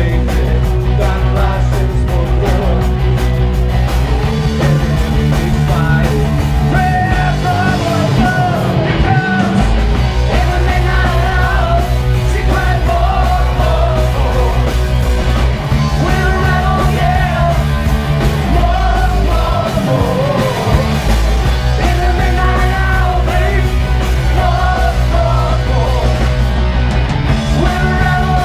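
Live rock band playing loud: electric guitar, bass and drum kit with sung vocals. The heavy low end drops out briefly twice.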